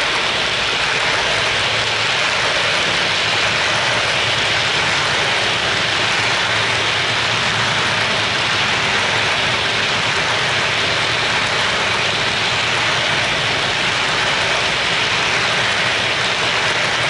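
Wheels of HO-scale coal hopper cars rolling over the model track, giving a steady, even rushing hiss as the long train passes close by.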